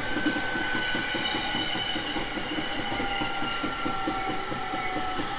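Running sound of a JR 701 series 5500 electric train: the wheels roll over the rails in a rapid clickety-clack, and the traction motor whine falls steadily in pitch as the train slows.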